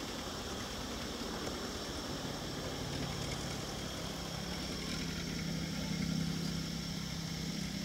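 Belarus tractor's diesel engine running steadily as it approaches hauling a loaded cassava trailer, its engine note growing louder from about two and a half seconds in.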